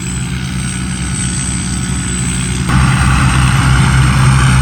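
Diesel engine of a rice combine harvester running steadily under harvesting load, a low drone with a thin high whine above it. It gets suddenly louder about three seconds in.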